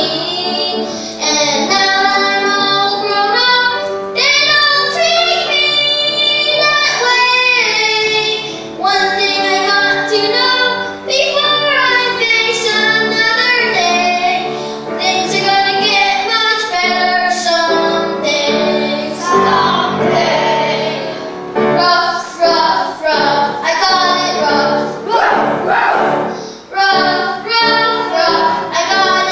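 A child singing a solo song with musical accompaniment.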